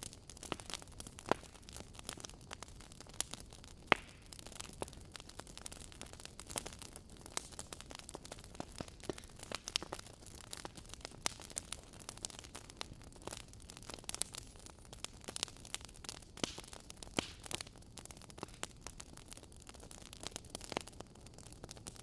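Wood fire crackling in a fireplace: irregular snaps and pops over a faint steady hiss, with a sharper pop about four seconds in.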